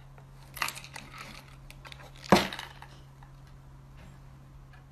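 A cat pawing inside a small cardboard box on a wooden tabletop: scrabbling, rustling scrapes about half a second in, then one sharp knock a little after two seconds, the loudest sound, over a steady low hum.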